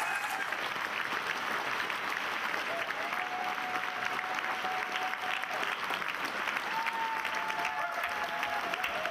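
An audience applauding: steady clapping from many hands at the close of a talk.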